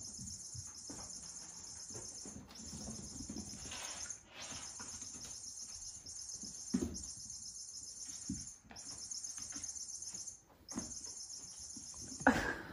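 Kittens playing and wrestling on a laminate floor around a spring-mounted mouse and track toy: scattered soft thumps and scuffles, with a louder knock about seven seconds in and another near the end. A steady high-pitched chirring runs underneath, breaking off briefly several times.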